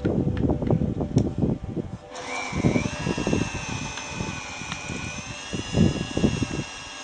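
A power drill's motor starts about two seconds in, its whine rising briefly and then running steadily. Irregular low thuds sound throughout.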